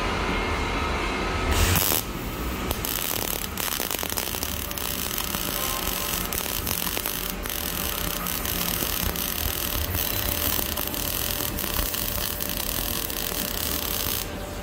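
MIG welding arc on a steel pipe joint: it strikes with a sharp burst about two seconds in, then crackles and sizzles steadily, and cuts off just before the end.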